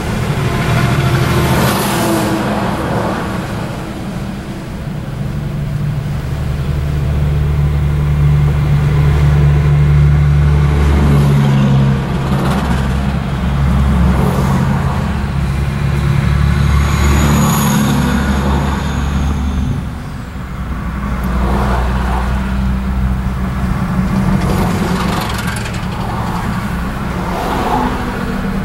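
Car engine and tyre noise heard from inside the cabin while driving on a highway, a steady low drone. Oncoming trucks and cars pass by with a brief whoosh several times, one of them with a high whistling tone.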